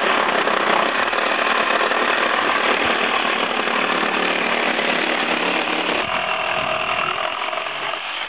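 Ryobi reciprocating saw cutting through pallet wood, a loud steady saw noise that stops abruptly at the end.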